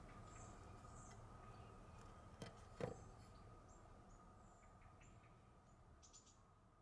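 Near silence: faint background with a thin steady whine, a few faint short high chirps, and two soft clicks a moment apart near the middle.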